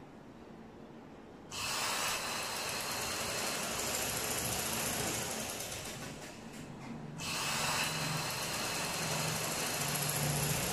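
Electric-motor-driven sewing machine stitching a trouser leg seam: quiet for the first second and a half, then running steadily, easing off for about a second near the middle and running again.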